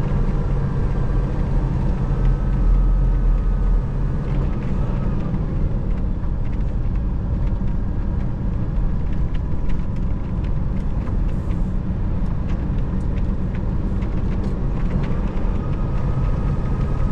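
Steady low drone inside a semi truck's cab while driving: the tractor's diesel engine and tyre and road noise running evenly, with a few faint light rattles.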